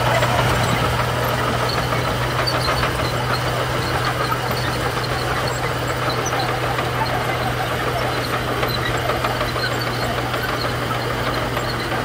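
Crawler bulldozer's diesel engine running steadily under load as it pushes and spreads gravel with its blade. A constant low hum sits under a dense gritty noise.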